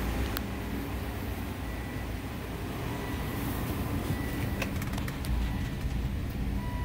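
2005 Volvo XC90's 2.5-litre turbocharged five-cylinder engine idling steadily, with a couple of light clicks.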